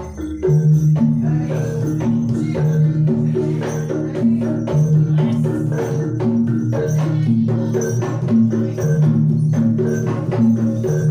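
Jaranan gamelan accompaniment: low gong-chime and metallophone notes repeating in a steady cycle over a continuous beat of struck percussion.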